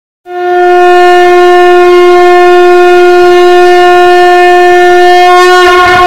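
A conch shell (shankh) blown in one long, steady note that wavers and fades near the end.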